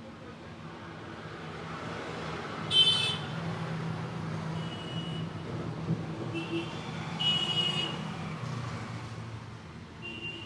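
Roadside traffic: a vehicle rumble that swells over a few seconds and then eases off, with several short, high-pitched beeps over it.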